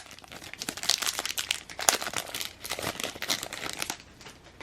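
Foil trading-card pack wrapper crinkling as it is handled and opened, a dense crackle that dies down near the end.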